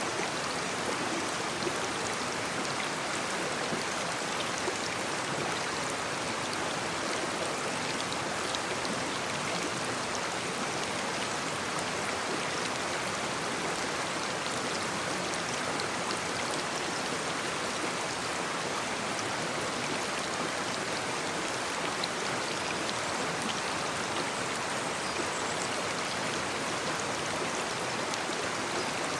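Shallow brook babbling and trickling over stones, a steady rush of water with small splashes and droplets.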